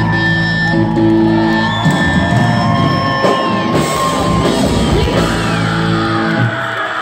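Live rock band with electric guitars, bass and drums holding out a closing chord while the crowd yells and whoops; the band stops about six and a half seconds in, leaving the crowd cheering.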